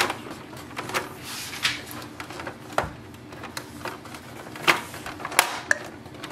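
Plastic casing parts of an Epson ET-3830 EcoTank printer being handled and fitted back together: irregular clicks and knocks, the loudest nearly five seconds in.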